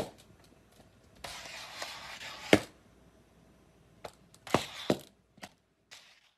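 A plastic cone collar on a cat knocking and scraping against a tile floor as the cat walks: a sharp knock, a second or so of scraping that ends in another knock, then a few lighter clicks.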